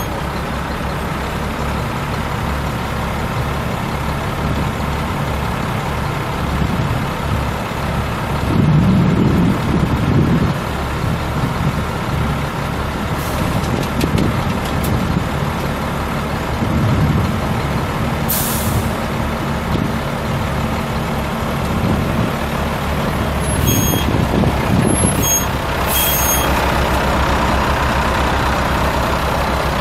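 A 1990 Ford L8000 dump truck's 7.8-litre inline-six diesel engine running steadily, swelling louder a few times. Partway through there is a short hiss of air from the truck's air brake system.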